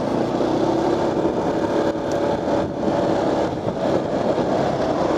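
Motorcycle running steadily while riding along the road, its engine under an even rushing noise.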